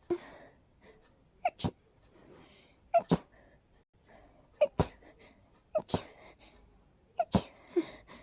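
A person sneezing again and again in rapid succession, about every one and a half seconds, the sneezes mostly coming in quick pairs, each with a short catch of voice just before. The sneezes are an allergic reaction to sniffing daisies.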